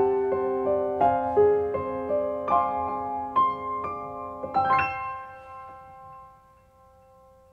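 Background piano music: a gentle melody of single notes, ending in a final chord about five seconds in that rings out and fades away.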